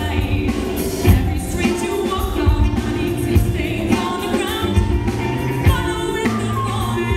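Live rock-pop band playing a song with a female lead vocal: singing into a microphone over electric guitar, bass, drum kit and congas, with steady drum hits.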